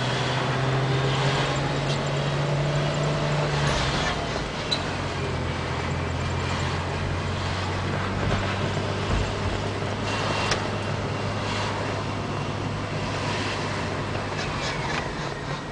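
Car moving slowly with its engine running steadily and a rubbing noise from the passenger-side front wheel, which the driver calls definitely not a good sound. It does not seem to get worse when turning.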